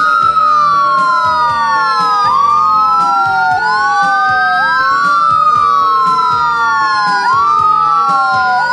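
Sirens of a fire engine and an ambulance wailing together, standing still. Two overlapping wails rise and fall out of step, each cycle lasting about two and a half seconds.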